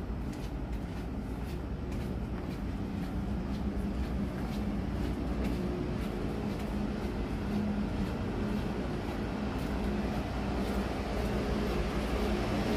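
Steady low drone of a container ship's machinery, with a hum running through it, growing louder near the end. Faint regular ticks, about two a second, are footsteps on the steel deck.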